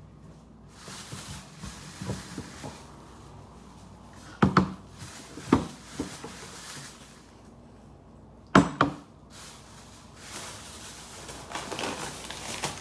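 Groceries being put away by hand: a few sharp knocks and clunks, two close together near the middle and a double knock later, with stretches of rustling noise between them.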